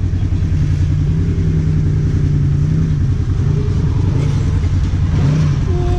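Polaris RZR side-by-side's engine running: a steady low pulsing exhaust with a humming note that wavers a little in pitch.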